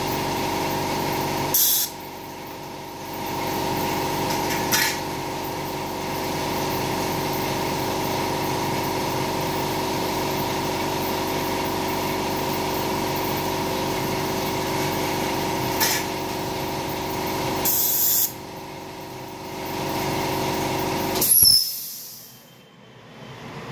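Dental unit machinery humming steadily, with about five short, sharp hisses of compressed air. The hum drops out twice for a second or two and fades near the end.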